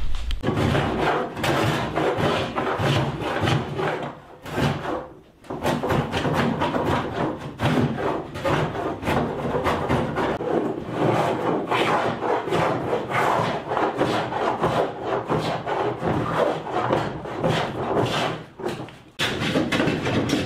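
Hand plane shaving the plywood edges of a stitch-and-glue kayak hull in repeated scraping strokes, with short pauses about four seconds in and again near the end.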